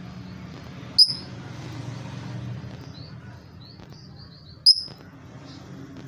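Blue masked lovebird giving two loud, sharp, high chirps, about a second in and near five seconds in, with a quick run of softer chirps between them, over a steady low hum.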